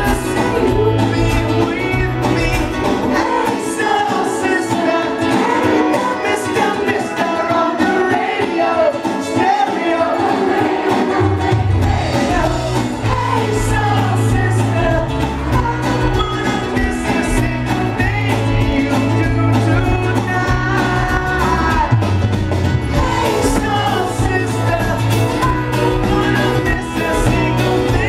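Live pop-rock band playing, with a male lead vocal over guitars, keyboards and drums, heard from the audience. The bass drops out from about three seconds in and comes back about eleven seconds in.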